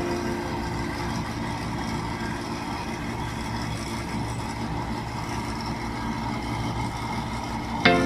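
Engine of a rice harvesting machine running steadily in the paddy.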